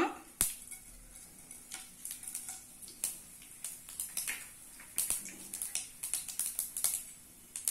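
Mustard seeds popping and spluttering in hot oil: scattered, irregular sharp pops, thickest about two-thirds of the way through. The popping is the sign that the tempering oil is hot.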